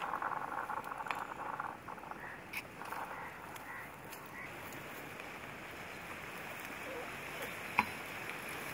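Harsh, rapidly pulsing animal calls in the first second and a half and again briefly about three seconds in, with a few faint high chirps between them and one sharp click near the end.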